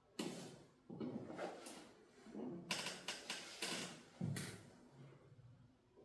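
A run of short rustling and clattering handling sounds, like objects being moved about on a desk, coming in four or so bunches of quick strokes.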